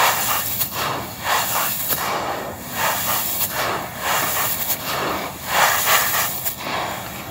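Dry crushed yellow stone, fine as sand, hissing and rustling as it is scooped up by hand and crumbled back down through the fingers onto the heap, in repeated rushes about one or two a second.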